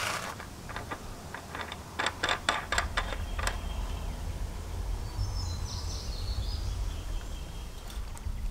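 Light metallic clicks as a lock nut is spun by hand onto a threaded all-thread axle, then a steady low outdoor rumble with a few faint bird chirps.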